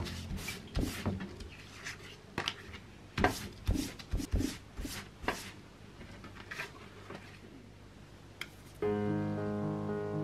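A cloth wiping a banana leaf on a wooden board in a series of quick rubbing strokes that stop after about five seconds. Near the end, piano background music comes in.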